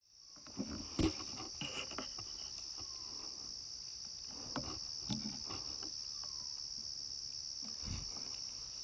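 Steady high-pitched chorus of insects, with scattered short knocks and rustles; the sharpest knock comes about a second in.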